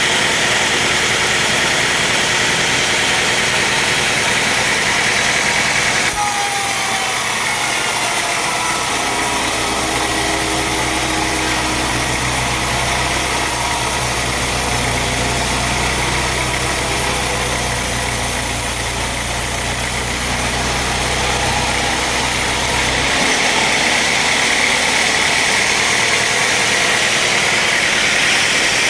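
Sawmill machinery running loud and steady. A low motor hum joins in from about eight seconds until the sound changes abruptly at about twenty-three seconds.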